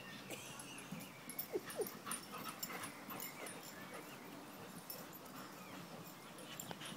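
A Doberman and a Staffordshire bull terrier playing rough, with two short whines close together about a second and a half in and scattered light clicks and scuffs.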